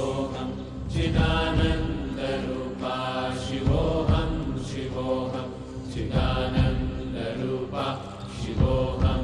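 Mantra chanting: voices intoning short repeated phrases over a steady low drone.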